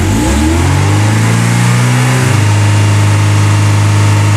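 Mercedes 190E 2.0 four-cylinder petrol engine, heard from inside the cabin, revved up from idle and held at a raised speed. About two seconds in, the engine note drops a little and the sound changes as the viscous fan clutch engages and the fan begins spinning with the engine, a sign that the coolant has reached the switching temperature.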